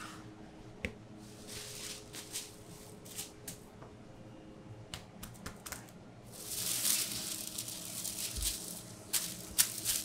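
A plastic sheet rustling and crinkling as hands roll a log of dough inside it, loudest from about six seconds in, with scattered light taps and knocks of hands on the worktable. A low steady hum runs underneath.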